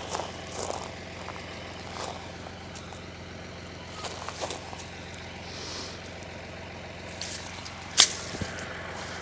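Tractor engine running steadily in the background, a low even hum. About eight seconds in, a golf club strikes the ball with one sharp click as a chip shot is played.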